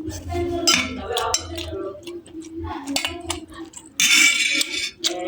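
Close-up eating sounds: chewing with clicks of cutlery against a plate, and a loud hissy slurp or crunch about four seconds in, over a faint background voice and a low hum.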